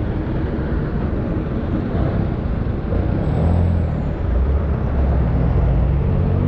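Motor vehicle engine running with a low rumble, growing louder about three seconds in.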